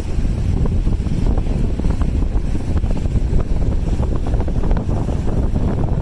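Strong wind buffeting the microphone as a steady low rumble with gusty flutter, with waves on the lake beneath it.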